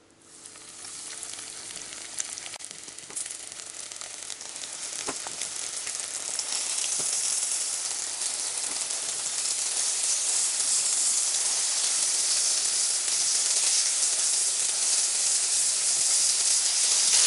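Flour-dredged pollock fillet pieces sizzling in hot sunflower oil in a frying pan. The sizzle starts sharply as the first piece goes in and grows steadily louder as more pieces are added.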